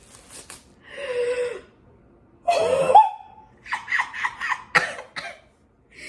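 A woman's excited wordless vocalising on the edge of tears: a short held squeal about a second in, a gliding cry near three seconds, then a run of quick breathy laughs.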